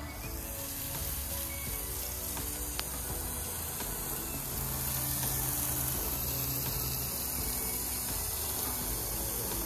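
Water spraying from a garden hose with a steady hiss, which starts abruptly.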